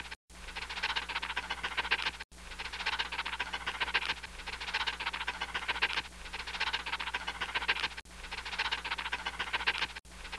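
Cartoon sound effect of a dog lapping and slurping up liquid: a wet, clicking noise that loops, restarting about every two seconds.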